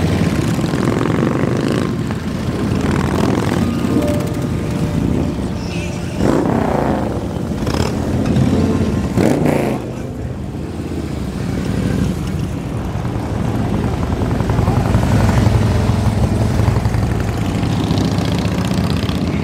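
A stream of motorcycles, mostly Harley-Davidson touring bikes, riding past one after another with a steady engine rumble. The sound swells as two bikes ride close by about six and nine seconds in.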